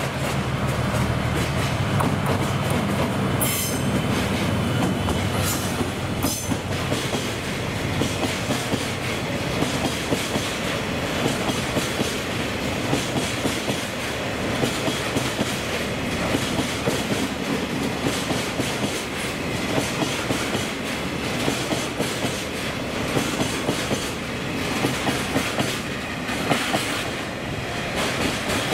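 DF200 diesel-electric freight locomotive running past, its engine note strongest in the first few seconds. Then a long train of Taki 1000 oil tank wagons rolls by, the wheels giving a steady clickety-clack over the rail joints.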